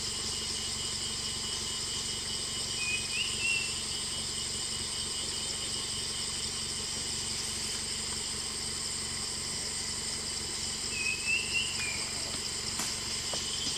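Steady, high-pitched chorus of forest insects. Two brief rising chirps cut through it, about three seconds in and again about eleven seconds in.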